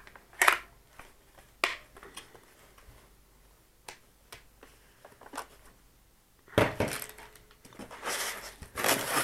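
Hard items being handled on a table: a few separate sharp clicks and knocks in the first five seconds or so, then a denser stretch of clattering and rustling from about six and a half seconds in.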